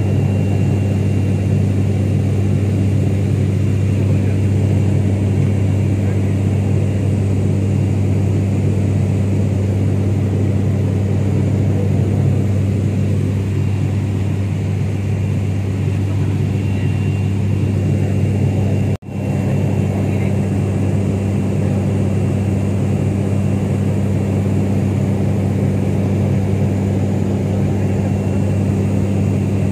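Turboprop airliner's engine and propeller drone heard inside the passenger cabin in cruise: a loud, steady low hum with a deep tone and its overtone, unchanging. The sound cuts out for a moment about nineteen seconds in.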